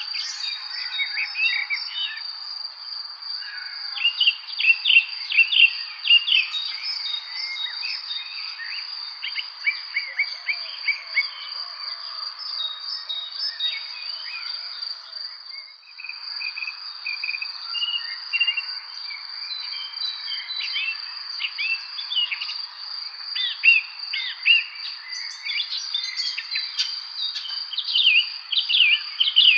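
A dense chorus of songbirds chirping and singing in quick overlapping phrases, over a steady high-pitched trill that runs throughout. The whole chorus drops out briefly about halfway through.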